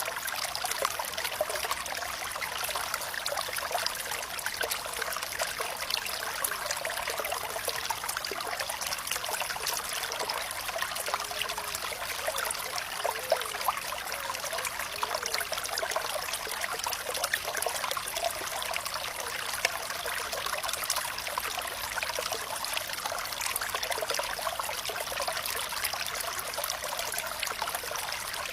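Water flowing and trickling steadily, a small stream or spill over stones, with light bubbling and gurgling about midway.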